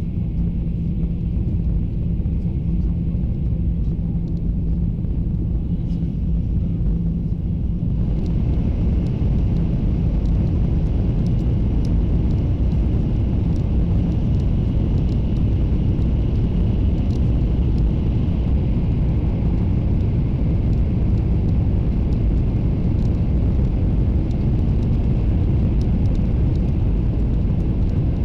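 Taiwan High Speed Rail train at high speed, heard inside the passenger cabin: a steady low running rumble with a faint hum. About eight seconds in, the noise gets fuller and a little louder and stays that way.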